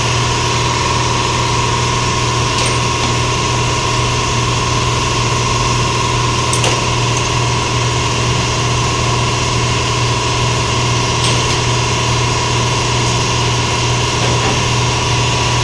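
A steady, unbroken machine drone, with a low hum and a thin steady tone above it, and a few faint clicks.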